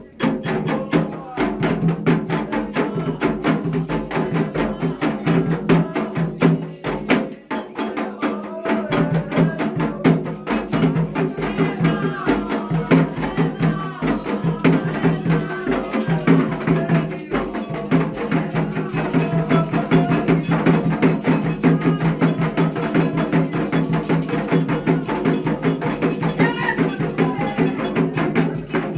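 Ritual percussion music: drums and a sharp, clicking struck instrument keep up a fast, even rhythm, with voices singing over them. The music dips briefly about seven seconds in, then carries on.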